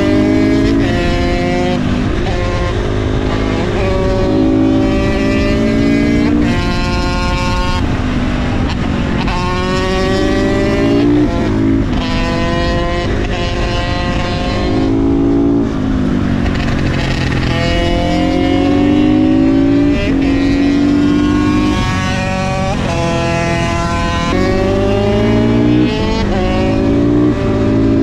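KTM 450 supermoto's single-cylinder four-stroke engine being ridden hard through an aftermarket exhaust. The engine note climbs with the revs and drops sharply at each gear change, with stretches where it falls away off the throttle before pulling up again.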